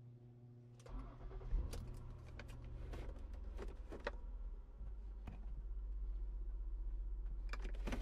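Car engine being started: a steady hum for about a second, then the engine catches and runs at idle with a low, pulsing rumble, with sharp clicks and rattles scattered over it.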